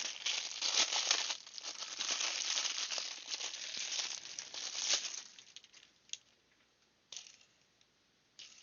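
Plastic wrapping crinkling and tearing as it is pulled off a small fidget spinner, for about five seconds; then a few short clicks.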